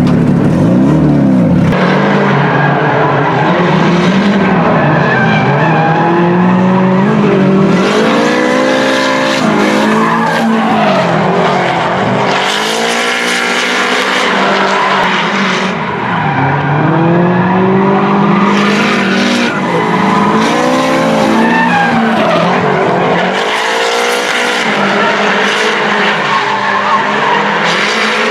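Two Nissan S13 drift cars sliding in tandem, their engines revving up and falling back again and again as they are throttled through the slides, with bursts of tyre squeal and skid noise.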